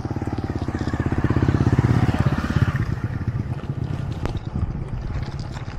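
Two small motorcycles approaching and passing close by, their engines pulsing rapidly, swelling to a peak about two seconds in and then fading away.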